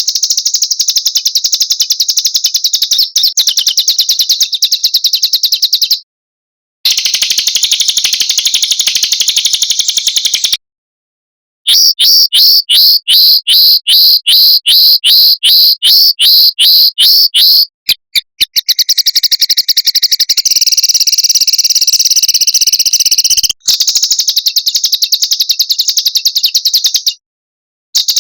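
Edited recording of small songbirds singing: fast rattling trills and strings of sharp repeated high notes, in segments cut off by sudden short silences. Around the middle comes a run of louder separate notes at about three or four a second.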